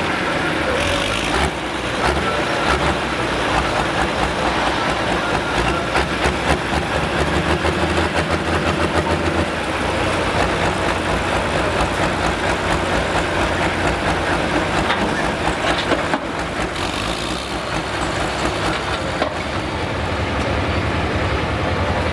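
Diesel pulling tractor in a Case IH MX240 body idling loudly at the line while hooked to the sled. The idle is uneven at first and settles into a steadier rumble about halfway through.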